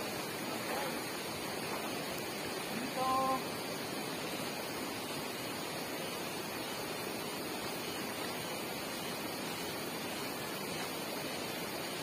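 Shallow river water running over rocks, a steady rushing hiss. About three seconds in there is one short pitched call.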